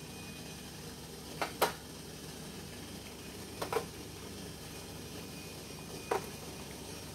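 Small plastic molds of puto batter being set down on a stainless steel steamer tray: sharp clicks in two pairs, about one and a half seconds in and near four seconds in, and one more just after six seconds, over the steady low sound of water boiling in the steamer below.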